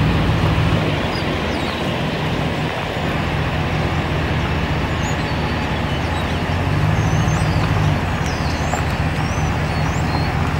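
Steady low rumble with a broad hiss, and small birds chirping from about halfway on.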